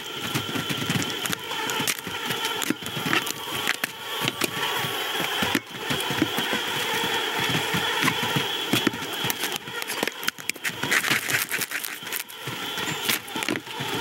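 Busy ambience of a crowded insect hangout from an animated film's sound-effects track: a steady bed of noise with a constant high buzz and many small clicks and rattles.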